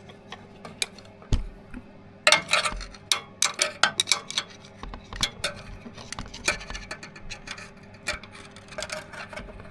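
Irregular small clicks, taps and rubbing of hands and small parts as a new oil seal is worked onto the motorcycle's gear shift shaft, busier from about two seconds in.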